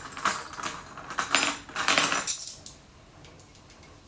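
Metal measuring spoons on a ring jangling and clinking as they are handled, in several bursts that stop about two and a half seconds in.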